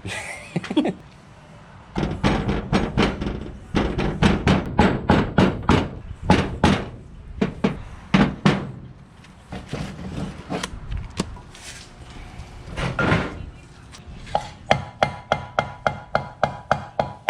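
Hammer blows on a steel socket used as a driver, tapping a new pilot bearing into the end of the crankshaft. The blows come in runs of about three a second, separated by short pauses.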